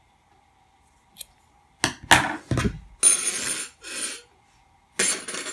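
Scissors snipping through yarn, then several short clatters with metallic clinks as the scissors and metal tools are handled and set down on a tabletop.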